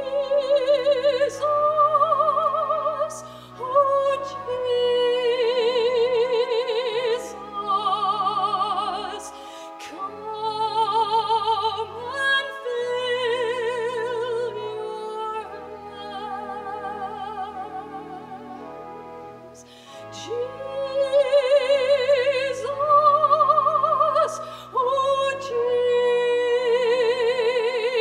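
A solo singer in classical, operatic style with wide vibrato, holding long notes in phrases over an instrumental accompaniment.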